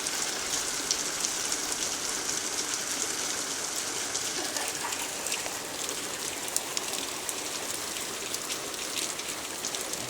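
Hail and rain falling hard: a dense, steady hiss studded with many sharp little clicks of hailstones striking hard surfaces.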